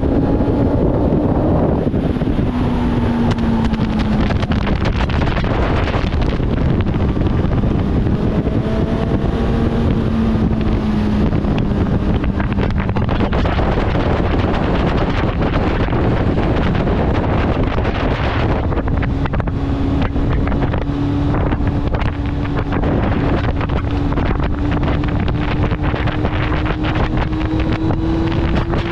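Kawasaki ZX-9R inline-four sport-bike engine running at cruising revs under heavy wind noise on the helmet microphone. The engine note eases down early on, steps up about two-thirds of the way through, then climbs slowly.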